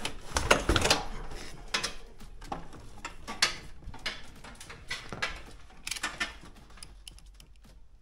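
Irregular clicks, rustles and light clatter of hand work on electrical wiring in a distribution board: cables, tools and connectors being handled. The handling is busiest in the first second and thins out toward the end.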